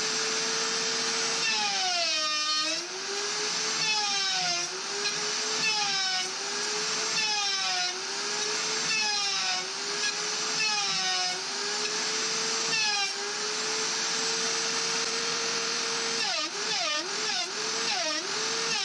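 Router in a router table running steadily. Its pitch sags each time a cross piece is pushed through to cut a rabbet, about every two seconds, then recovers. Near the end come several short, quick dips in a row.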